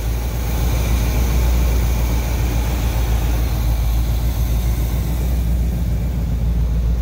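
1979 Chevrolet Corvette's small-block V8 idling steadily with a low rumble, warmed up a little and settled down to its normal idle.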